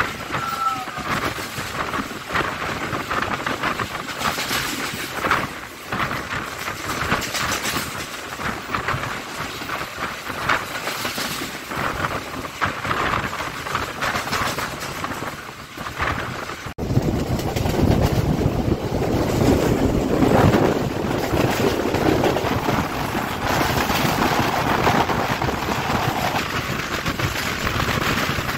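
Passenger train running fast, heard from an open coach doorway: steel wheels clattering on the rails with a rush of wind. About 17 seconds in the sound cuts abruptly to a louder, deeper rumble.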